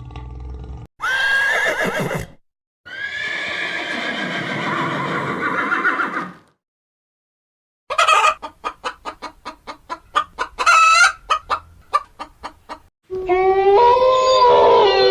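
Several separate animal calls cut one after another with short silent gaps: a brief call, a long harsh call, then a rapid run of chicken clucks, and a held, wavering call starting near the end.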